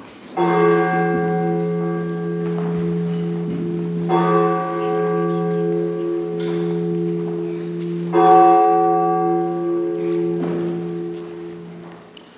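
A church bell tolling three slow strokes, about four seconds apart, each ringing on and fading into the next; the third stroke is the loudest.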